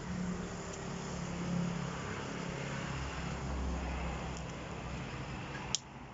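A motor vehicle's engine running, its low hum swelling about halfway through. It stops abruptly with a sharp click near the end.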